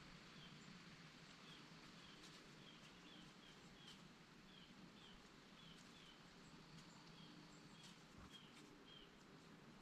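Faint, quick bird chirps, many short calls repeated irregularly over a quiet background hiss.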